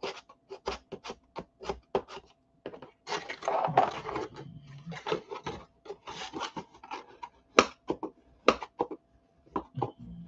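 Cardstock and chipboard being folded and rubbed down with a bone folder: dry rubbing and scraping strokes along the creases, broken up by many small ticks and clicks of the stiff paper being handled.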